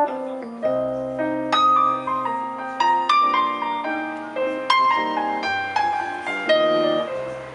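Yamaha electric stage piano playing a solo passage of chords and melody notes, each strike ringing and fading before the next.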